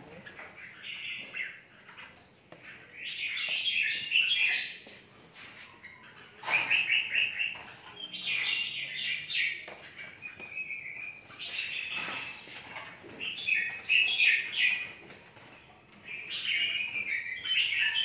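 Caged songbirds chirping in repeated bursts of rapid high notes, each about a second long, every two or three seconds.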